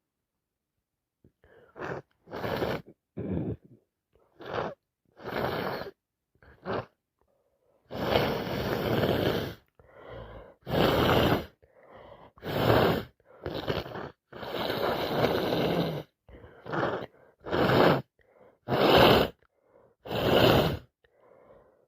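A woman with a sinus infection and allergies sneezing and sniffing over and over, her nose congested and itching: a string of about twenty short noisy bursts, two of them longer, about a second and a half each.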